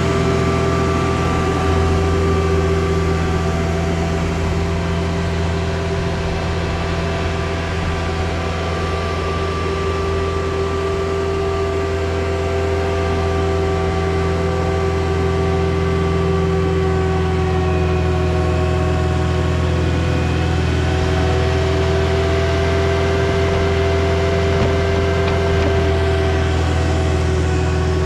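Caterpillar 259D skid steer's diesel engine running at a steady speed, with a strong low drone and higher whining tones that drift slowly up and down in pitch.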